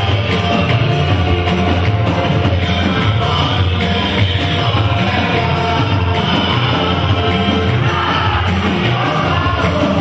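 Loud, continuous church worship music: voices singing over instrumental accompaniment with a heavy, steady bass.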